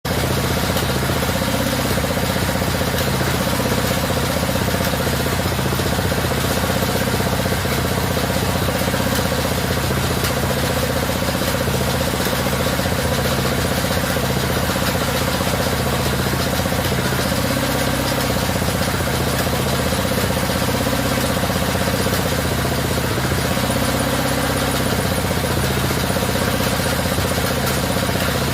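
Homemade 3-in-1 satay-skewer making machine running steadily, with a constant motor hum and a busy mechanical clatter over it.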